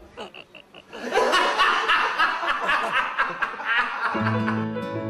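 After a quiet first second, a burst of laughter lasting about three seconds, then gentle plucked-string background music from about four seconds in.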